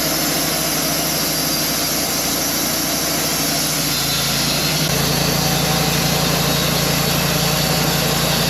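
Engine running steadily at idle, its tone shifting slightly about four to five seconds in.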